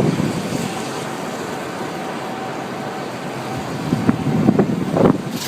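Wind rushing over the microphone in a steady loud roar, with stronger low gusts buffeting it about four seconds in.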